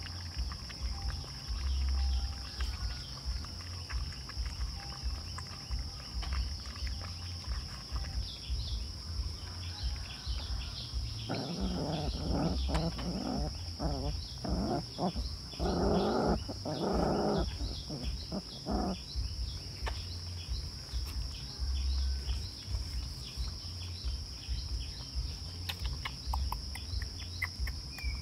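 Puppies play-growling while they tussle: a run of short, rough growls for several seconds around the middle, over a steady high-pitched insect drone.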